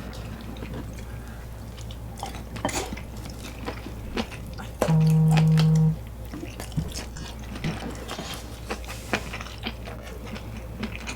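Irregular clicks and clinks of tableware and utensils as food is handled at the table. About halfway through there is a steady low buzz lasting about a second, the loudest sound.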